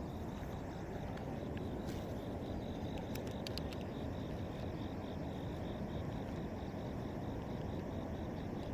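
Outdoor streamside ambience: an insect chirping steadily in a high, even pulse about three times a second over a steady low rumble, with a few sharp clicks about three seconds in.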